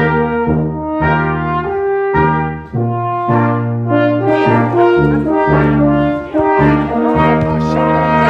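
Brass ensemble of trumpets, French horn, trombone, tenor horns and tuba playing a lively piece in short chords that change every half second or so over a steady tuba bass line.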